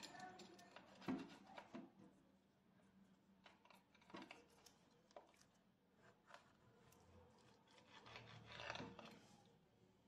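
Pizza wheel cutter crunching and scraping through the crisp baked shortcrust (pâte brisée) of a tomato and mozzarella pie, in a few faint strokes with scrapes against the plate.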